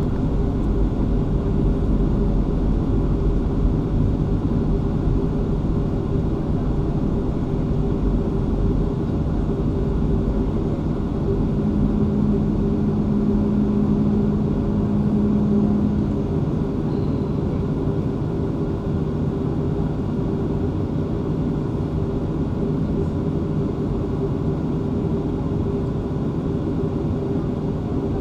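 Cabin noise of a Boeing 737-500 taxiing, its CFM56 jet engines running at low taxi thrust: a steady rumble with a constant hum. A lower steady tone joins for a few seconds about halfway through.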